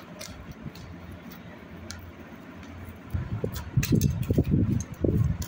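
Handling noise from plastic-wrapped cloth suit packs being moved by hand: faint crinkly clicks over a low hum, then from about three seconds in a run of dull, irregular bumps.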